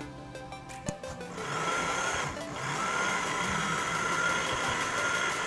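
Background music, then a little over a second in an electric blender switches on and runs steadily, chopping saluyot (jute mallow) leaves with a steady whine; its sound briefly dips about a second after it starts.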